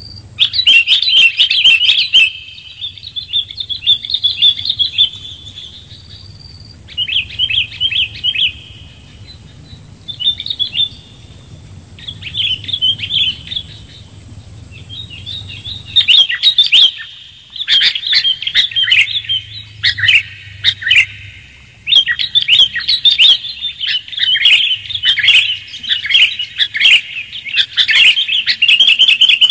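Sooty-headed bulbul (kutilang) song, a lure-call recording: short, quick chattering phrases, separated by pauses at first and running almost without a break from about halfway through.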